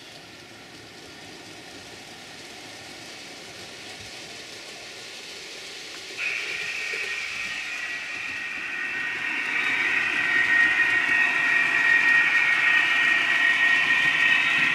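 Model trains running round a layout: a steady rumble of wheels on track, joined about six seconds in by a high-pitched motor whine that starts suddenly and grows louder.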